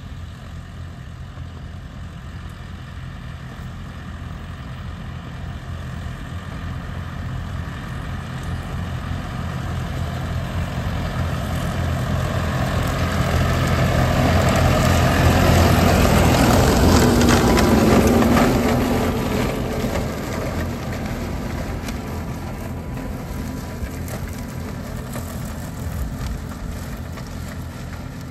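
John Deere 5115M tractor's four-cylinder diesel engine running steadily while its Baselier topper cuts back potato stalks. It draws nearer, is loudest with the rush of the topper about halfway through as it passes close, then moves away.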